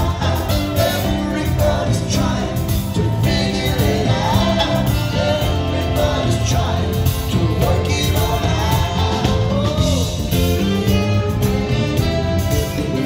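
A live band playing with a male lead singer singing over it: a sung melody line above steady bass, chords and drums.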